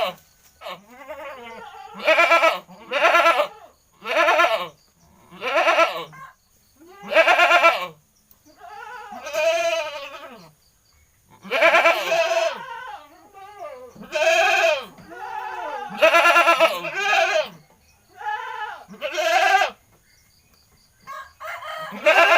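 A goat bleating over and over, loud wavering calls coming every one to two seconds with short pauses between them.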